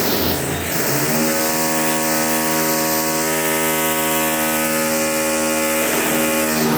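An electric power tool's motor runs at a steady speed, starting about a second in and stopping at the end with an even, buzzing hum.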